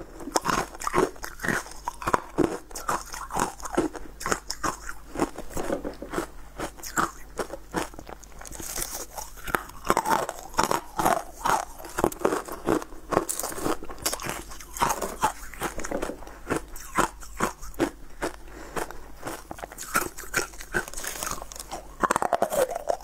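Frosted ice chunks crunched between the teeth: dense, irregular bites and chewing crunches with no let-up.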